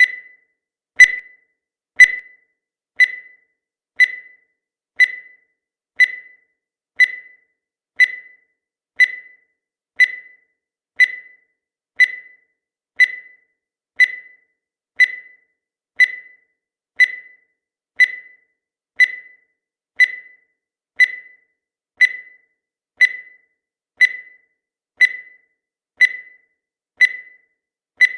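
Countdown timer sound effect: a short high-pitched beep once every second, each dying away quickly, in a steady unbroken rhythm.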